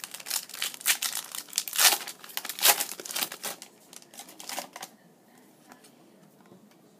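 A trading card pack's wrapper being torn open and crinkled, a rapid run of crackles that stops about five seconds in.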